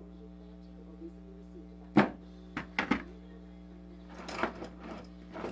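Small wooden box of screws and hardware handled on a plywood workbench: a sharp knock about two seconds in, a few lighter clicks just after, then parts rattling near the end, over a steady low hum.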